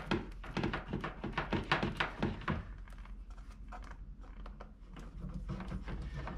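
Plastic plug connectors of a waterproof, gasketed power extension cable being handled and pushed together: a run of small clicks and taps with cable rustle, thickest in the first couple of seconds, easing off in the middle and picking up again near the end.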